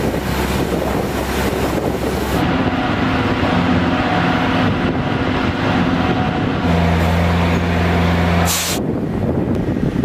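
Steady machinery drone over a rushing hiss, the low hum changing pitch and loudness abruptly about two and a half, six and a half and nine seconds in.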